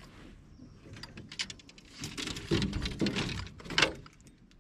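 A baitcasting reel being cranked to retrieve a cast, a fast run of small clicks and whirring. It grows louder about two seconds in.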